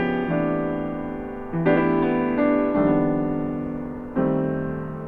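Music: slow piano chords, each struck and left to ring out before the next, a new chord about every second and a half, with no singing.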